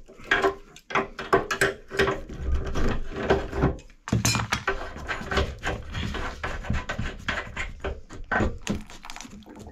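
Water-pump pliers clicking and scraping on a radiator valve fitting as it is worked loose, a run of sharp metal clicks and knocks, with a louder clatter about four seconds in as the pliers are put down on the floor.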